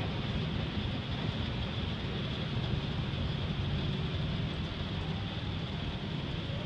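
Schindler escalator running: a steady low rumble of the moving steps and drive, with an even hiss above it.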